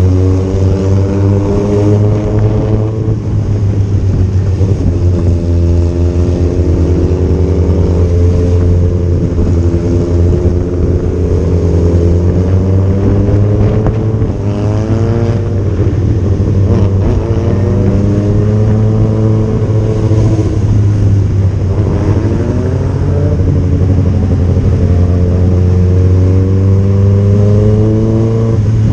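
Motorcycle engine running at highway speed, its revs rising and falling several times as the rider accelerates and changes gear, over a steady low wind rumble.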